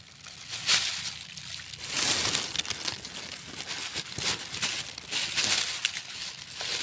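Plastic bag rustling and crinkling in irregular bursts as it is pulled open and a hand shifts the wet fish inside.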